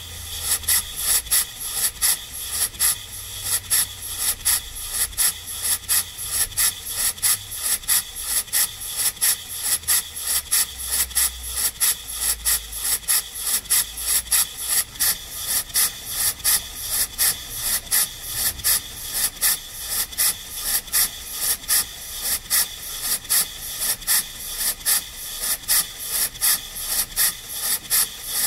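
Scratch-built model marine walking beam engine, a single double-acting cylinder, running on its first test: a steady train of rasping exhaust chuffs at about two a second over a steady high hiss. It is breaking in against heavy valve springs with no paddle wheels fitted, so it does not run smoothly.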